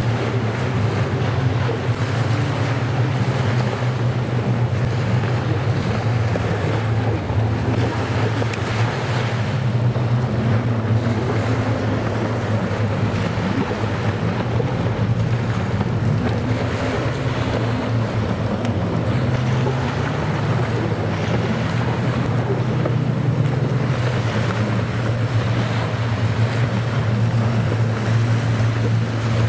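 Racing jet skis (personal watercraft) running out on the water, a steady engine drone that shifts in pitch now and then, mixed with surf and wind buffeting the microphone.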